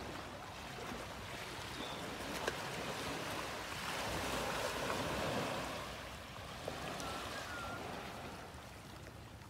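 Small waves washing against a rocky shoreline, an even rush of water that swells about four seconds in and eases off again, with a couple of brief ticks.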